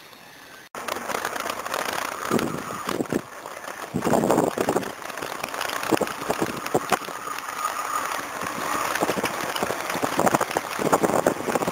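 Wind buffeting the microphone of a camera on a moving bicycle, with rattles and knocks as the bike rolls over a concrete road. It starts abruptly less than a second in.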